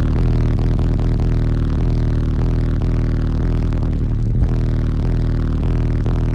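Bass-heavy music played at extreme volume through a wall of nine Fi 12-inch Team NEO subwoofers. The deep, steady bass dominates with a regular beat.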